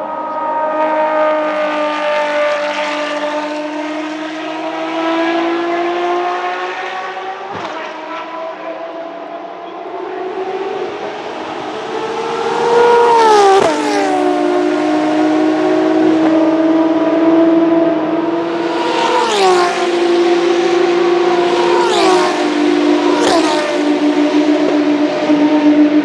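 Ferrari FXX K Evo 6.3-litre naturally aspirated V12 race engines accelerating hard. The pitch climbs slowly over the first dozen seconds, then drops sharply at four quick upshifts in the second half, each with a short crack.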